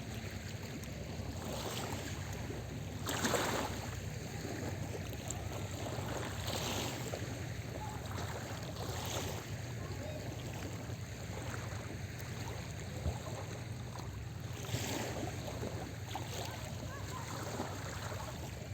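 Small sea waves washing onto the shore, each wash swelling briefly every few seconds over a steady low hum.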